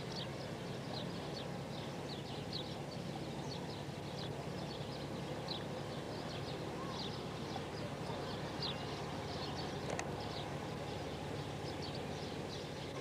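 Outdoor summer ambience: short, high chirps repeat irregularly a few times a second over a steady low hum. There is one sharp click about ten seconds in.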